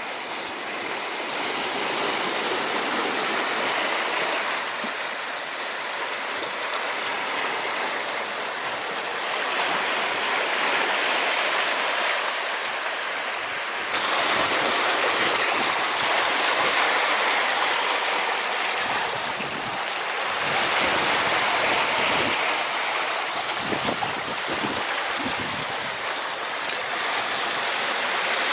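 Steady rush of flowing water, a continuous noise with no distinct events; it jumps abruptly louder about halfway in.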